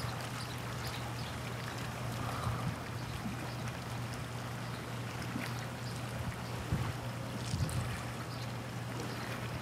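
Small waves lapping on the water with light wind, a steady wash of noise over a constant low hum.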